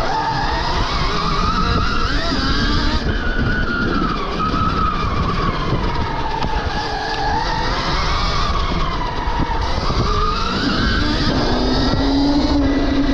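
Stark Varg EX electric dirt bike's motor and drivetrain whining, the pitch rising and falling repeatedly as the bike speeds up and slows, over a loud, steady rushing noise.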